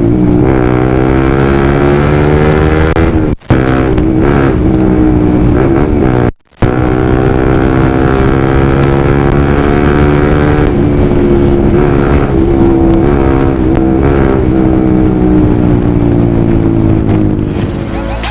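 Honda CBR150R single-cylinder engine running loud through a Yoshimura Alpha carbon full-system exhaust, its engine speed slowly rising and falling. The sound cuts out briefly twice, about three and a half and six and a half seconds in.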